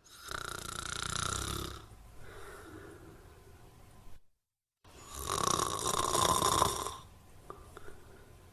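Snoring: two loud snores, each about a second and a half long, with quieter breathing after each and a brief silent break between them.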